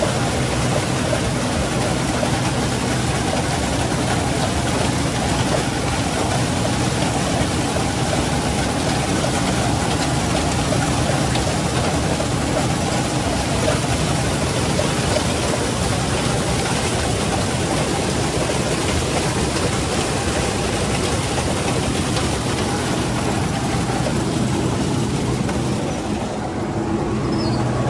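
Case IH 2388 combine running steadily while harvesting sunflower: a constant engine hum under a dense rushing noise from the machine. The higher rushing thins out shortly before the end.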